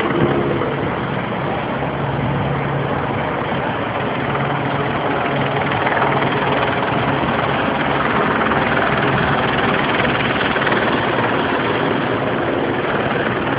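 Steady drone of a helicopter overhead, mixed with the noise of cars passing on the street.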